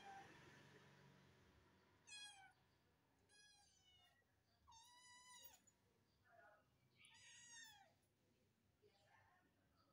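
A kitten meowing: about five short, high-pitched meows spaced roughly a second apart, each dropping in pitch at the end.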